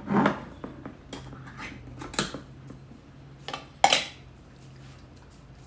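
A can of condensed soup being emptied into the casserole mixture: a few separate clinks and knocks of a utensil against the can and dish, the loudest just before four seconds in. A faint low hum runs underneath.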